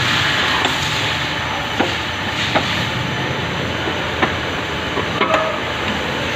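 Steady machine-shop din with a few sharp metal clinks at irregular intervals, as a piston pin bushing is pressed into a connecting rod's small end with a hand-operated rack-and-pinion arbor press.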